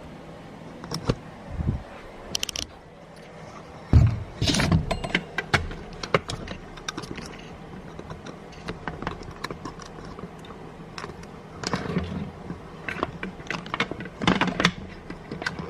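Handling noise: scattered clicks, knocks and rustles, with a heavy thump about four seconds in and more clusters of clicks near the end.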